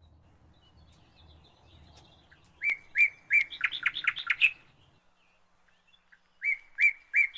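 A songbird sings two phrases. Each phrase is a few evenly spaced high notes that speed up into a quick run of notes.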